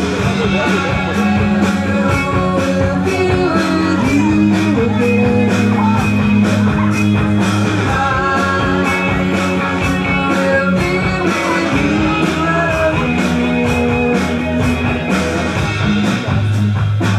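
Cover band playing a rock song: singing, guitar and a steady drum beat.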